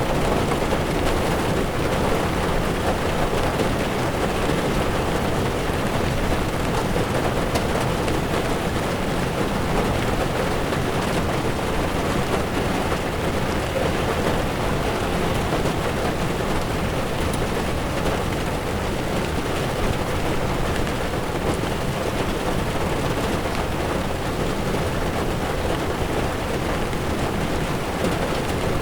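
Heavy rain drumming steadily on a car's windshield and roof, mixed with the hiss of tyres on the wet road, heard from inside the moving car.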